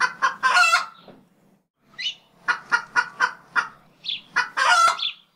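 Domestic fowl calling: a few short clucks, then a longer drawn-out call; after a pause, a run of about five evenly spaced clucks leads into another longer call near the end.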